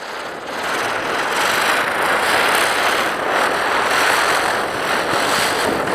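Ground spinner firework (chakri) spinning on the ground, its burning charge giving a steady rushing hiss.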